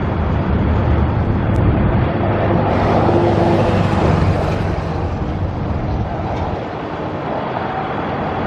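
Strong wind buffeting the microphone, a loud rumbling rush, which swells and turns brighter for a couple of seconds around the middle.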